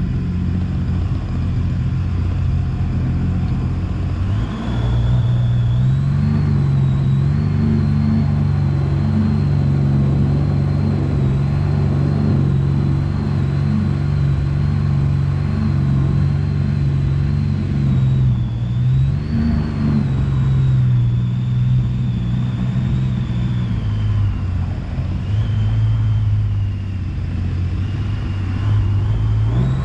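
Jet boat's engine running under way, with a thin high whine that rises and falls with engine speed. It speeds up about four seconds in, eases off twice in the second half, and picks up again at the very end.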